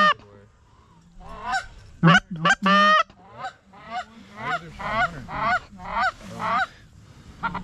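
Goose honks and clucks in quick series. A loud honk comes at the start and two more, very loud and close, about two to three seconds in, followed by a run of quicker, quieter clucks.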